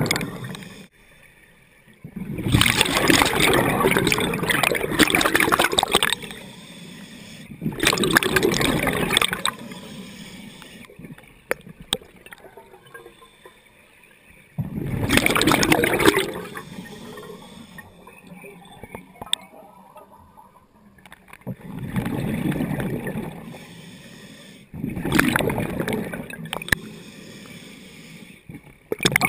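Scuba diver breathing through a regulator underwater: loud bursts of exhaled bubbles gurgling past the camera every few seconds, about six times, with quieter stretches of inhalation between.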